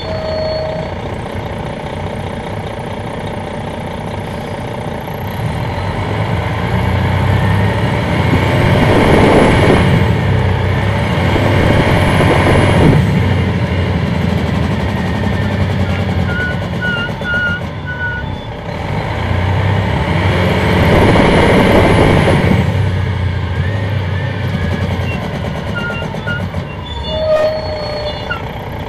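Detroit Diesel Series 60 diesel engine of an MCI D4000 coach, heard from the rear seats, running under way with a steady low rumble. It swells louder twice as the bus pulls harder, then eases back.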